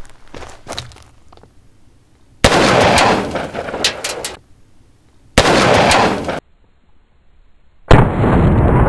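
A Taurus 605 Poly Protector .357 Magnum revolver is fired three times, about two and a half seconds apart, with each shot followed by a second or two of loud noise. The third shot bursts an aerosol can of spray snow. Faint footsteps on gravel come before the first shot.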